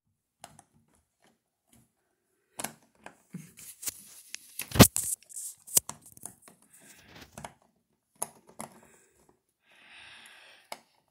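Slime being squished and stretched by hand: irregular wet crackles and clicks, with one loud snap about five seconds in and a short hissy stretch near the end.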